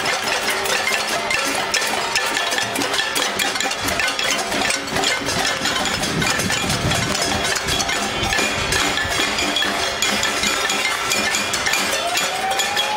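A crowd banging kitchen pots and pans, a dense, continuous metallic clanging of many overlapping strikes: the noise of a casserole protest.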